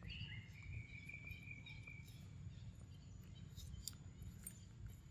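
Faint outdoor ambience: a thin, high whistling call held for about two seconds at the start, over a steady low rumble, with a few faint ticks near the end.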